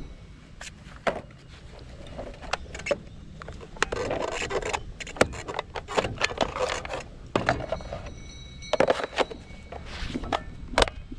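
Hard plastic equipment being handled: a string of sharp clicks and knocks with rubbing and scraping of plastic on plastic, busiest in the middle, as a hinged cover is opened and shut.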